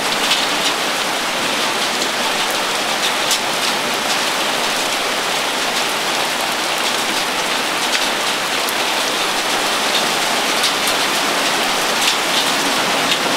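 Steady rain mixed with hail, pouring down on a wooden deck, with many scattered sharp clicks of hailstones striking the deck and railing.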